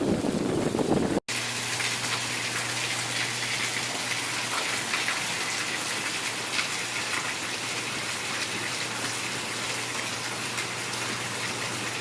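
Heavy rain pouring down in a steady hiss. Wind buffets the microphone for about the first second, then there is a brief cut, and after it the rain is heard alone.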